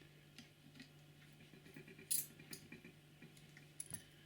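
Small screwdriver tightening tiny screws into a model locomotive chassis: faint scattered clicks and light scrapes of metal and plastic, with a sharp click about two seconds in and two more near the end.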